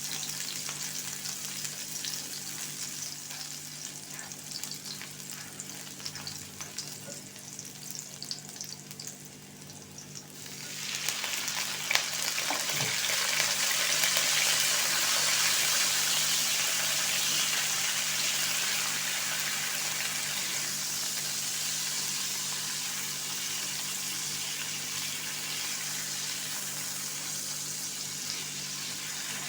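Food sizzling in hot oil in a pan while being stirred. About ten seconds in, the sizzle suddenly grows much louder and brighter, with a single knock a second or so later, and it stays loud after that.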